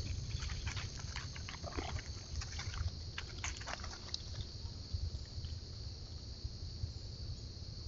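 Steady high-pitched insect chorus over a low rumble, with dry crackling rustles in the leaf litter, thickest in the first half and thinning out, as small animals walk through.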